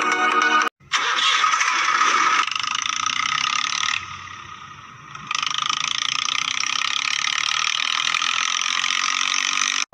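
Plastic toy tractor rattling as it rolls over dry dirt, a steady ratchet-like clatter that drops quieter for about a second midway. A brief snatch of music cuts off just before it.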